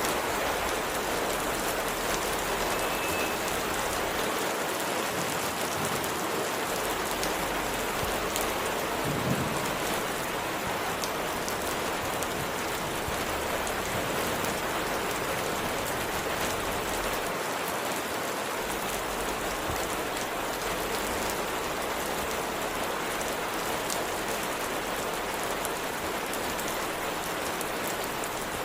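Steady rain falling, with many small drop ticks over an even hiss, and a brief soft thud about nine seconds in.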